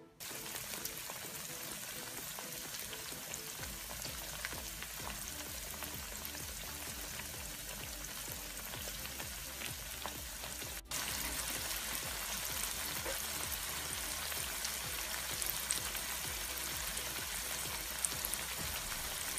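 Flour-dredged zucchini rounds frying in hot vegetable oil in a frying pan: a steady sizzle dotted with small crackles. It drops out for an instant about eleven seconds in, then resumes a little louder.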